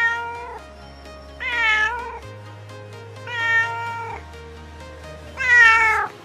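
A domestic cat meowing four times, about one every two seconds, each meow a drawn-out call. Background music with sustained low notes plays underneath.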